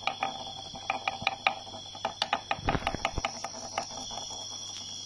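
Irregular sharp clicking and scratching from two fighting rhinoceros beetles, horns and claws against each other and the wooden log, with a denser burst of knocking about two and a half seconds in. A steady high-pitched tone rings behind it.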